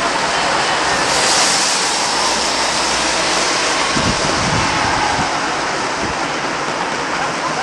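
Steady hiss of wind across the microphone, with a few low buffeting gusts about four to six seconds in.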